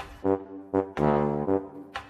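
Brass-instrument music, trombone-like, playing a run of short notes with one longer held note about a second in.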